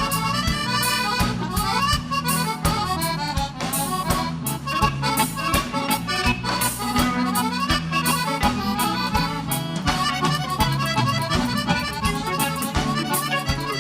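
Gaúcho dance band playing an instrumental break in a xote, with the accordion carrying the melody over a bass line and a steady drum beat.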